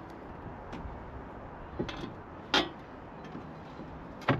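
A few short, sharp knocks and clicks over steady background noise, four in all, the loudest a little past halfway.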